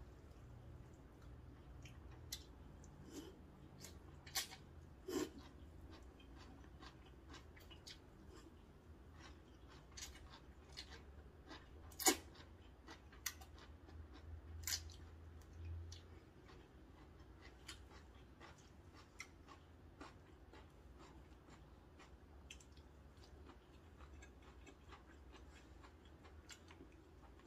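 Faint eating sounds: chewing and slurping of cold noodles and seafood pancake, with scattered sharp clicks and smacks, the loudest about twelve seconds in.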